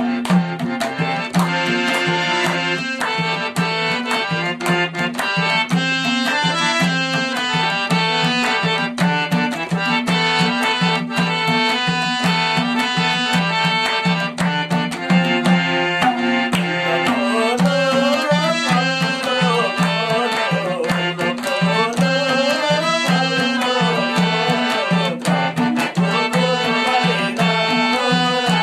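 Harmonium and madal hand drum playing a Nepali folk tune with a steady beat, and hand claps keeping time. A voice joins in singing a little more than halfway through.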